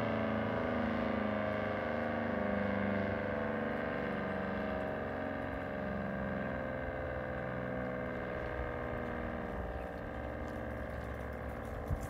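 ACA Banshee 115-C mechanical outdoor warning siren sounding its steady alert tone, its pitch sinking slowly and its level easing off as the siren begins to wind down at the end of the test.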